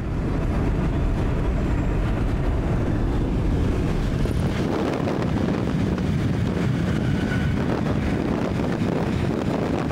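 Steady wind rush and road noise from a moving camper van, filmed at the side window, with wind buffeting the microphone.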